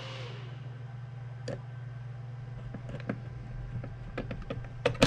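Scattered light clicks and taps of a screwdriver working a cooler mounting nut down onto its threaded screw, coming more often near the end, over a steady low hum.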